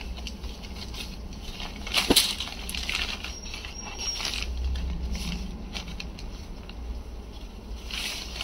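Saree fabric rustling as sarees are unfolded and spread out by hand on a pile of cloth, with a sharp tap about two seconds in.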